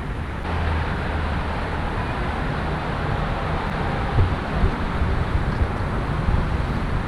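Steady outdoor rumble of wind and city background noise, with a low steady hum and a few soft knocks in the second half.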